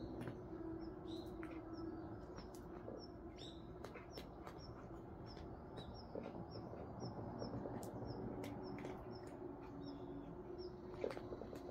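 A small bird chirping over and over, short high chirps about three a second through the middle, with scattered sharp clicks and crunches of cats chewing dry food from a bowl close by.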